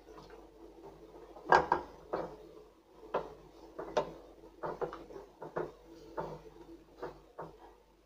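Wooden spatula knocking and scraping against a stainless steel pot while stirring a thick curry: a string of irregular clacks, the loudest about a second and a half in.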